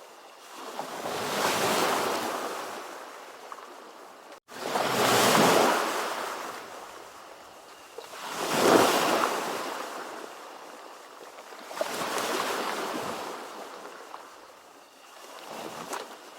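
Ocean waves washing in, one after another, each swelling and fading about every three and a half seconds. A split-second dropout to silence comes a little after four seconds in.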